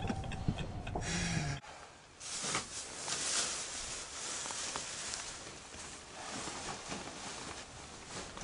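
Steady low rumble of a moving train carriage under a man's laugh, cut off suddenly after about a second and a half. Then quieter open-air ambience with rustling of camping gear and a few light knocks.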